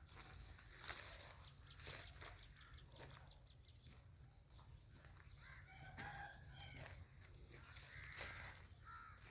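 A rooster crowing, a pitched call a little past the middle, with a shorter call near the end, among scattered short clicks and rustles.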